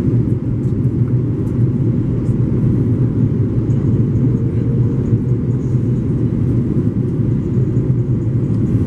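Steady cabin noise of an Airbus A330-300 airliner descending on approach, heard inside the cabin by the wing: the even, low drone of its Rolls-Royce Trent 700 engines and the airflow.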